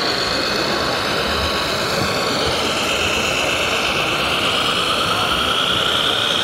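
Scale RC model Mercedes-Benz Unimog fire truck driving, with a steady engine-like running sound and a high whine that drops in pitch about two and a half seconds in, then slowly rises. A steady background hiss runs under it.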